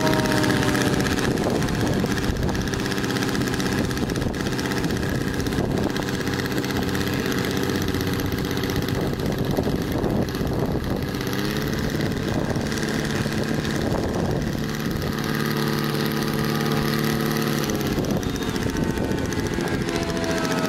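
Radio-controlled model airplane engine running steadily, with a falling whine at the start and again near the end. Its pitch steps up slightly about halfway through.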